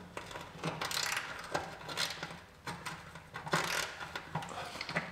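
Spanner clinking and scraping against bolts and sheet metal inside a Land Rover wing, several separate metallic clinks, worked blind by feel.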